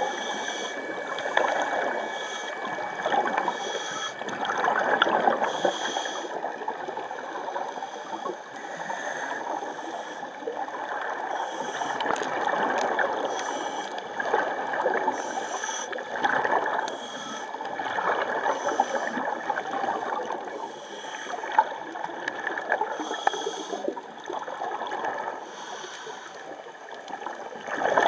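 Water gurgling and bubbling, rising and falling in irregular surges every second or two.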